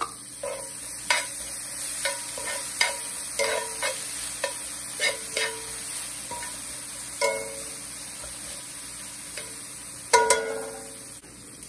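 Sliced red onions and minced garlic sizzling in a cast-iron skillet while metal tongs stir them, clinking against the pan about once a second; the loudest, ringing clink comes about ten seconds in.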